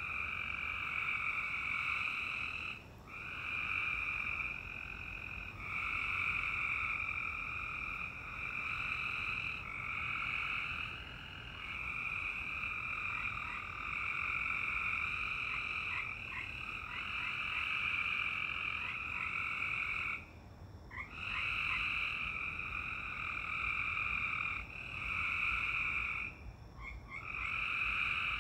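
A dense chorus of frogs calling, a steady high-pitched din in two pitch bands, broken by short lulls a few times.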